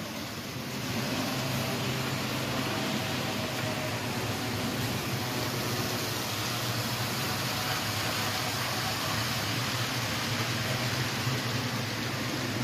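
HO scale model train running along the layout track: a steady hum from the locomotive's motor and the rolling wheels, picking up about a second in and holding level.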